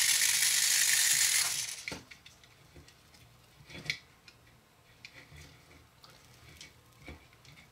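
A loud steady hiss that cuts off suddenly about a second and a half in, followed by faint, scattered clicks and ticks of small plastic toy parts being handled as fingers work at the flying eagle toy's gearbox housing.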